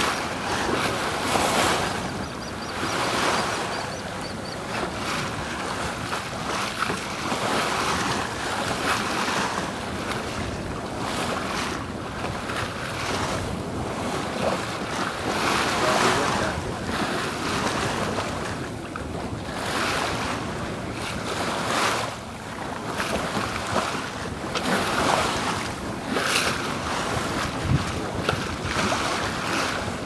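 Water rushing and splashing along the hull of a sailboat under sail, mixed with wind buffeting the microphone. The wash swells and eases every few seconds.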